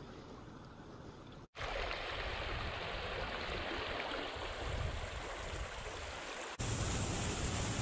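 Steady rushing of a shallow river flowing between icy banks. The sound cuts out for an instant about a second and a half in and comes back louder, then steps up again near the end.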